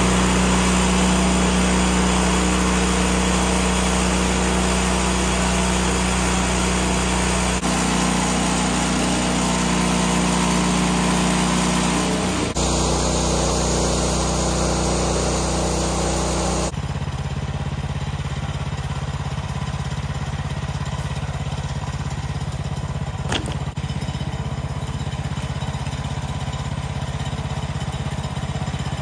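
Woodland Mills HM126 portable bandsaw mill's gas engine running steadily while the saw head is pushed through a log. Its sound shifts abruptly a few times, dropping somewhat about 17 seconds in.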